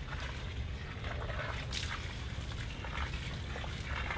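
Water trickling and splashing from a watering can onto potted plants and soil, over a steady low rumble.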